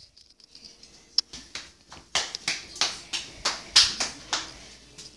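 Quick, sharp slaps on a hard tile floor, about three a second, faint at first and louder from about two seconds in.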